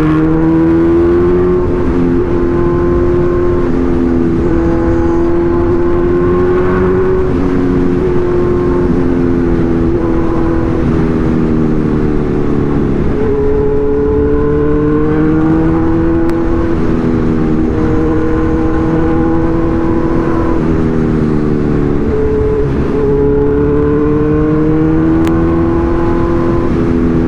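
Kawasaki Z1000 inline-four engine running steadily while riding, its pitch climbing and easing off a few times with the throttle, over a low rush of wind and road noise.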